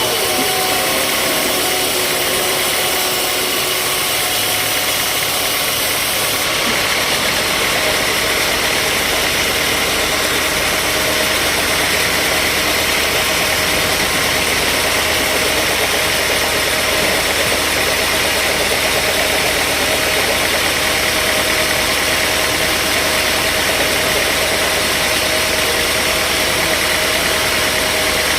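Sawmill machinery running steadily, a continuous engine noise. A little after six seconds the sound changes: the highest hiss drops away and a low steady hum comes in.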